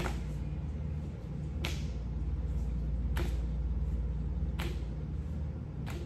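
Sharp, swishing hits repeating about every second and a half over a steady low hum.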